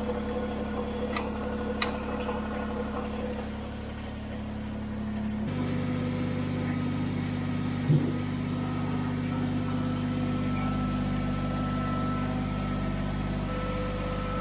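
Kubota BX23s compact tractor's three-cylinder diesel running steadily. Its note shifts to a different load about five and a half seconds in, and there is a single clunk about eight seconds in.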